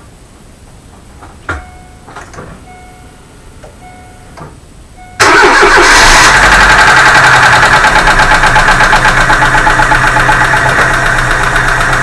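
A few clicks and short beeps, then about five seconds in the Chevrolet Aveo's 1.5 engine starts and idles with a rapid metallic tapping from its hydraulic lifters. The tapping is the cold-start lifter knock, which the owner puts down to a lifter that drains its oil while the car stands: its check ball sticks or its valve does not seat fully.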